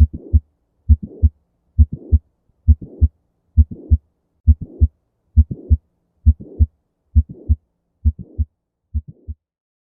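Recorded heartbeat of mitral valve prolapse, about one beat a second, each beat a low thud followed by a click and a short rushing murmur before the second sound. This is the mid-systolic click and late systolic murmur typical of a prolapsing, leaking mitral valve. The beats stop shortly before the end.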